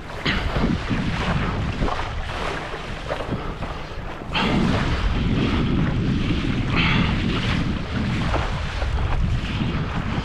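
Wind buffeting the microphone over water sloshing around a kayak, with scattered short splashes and knocks; it gets louder about four seconds in.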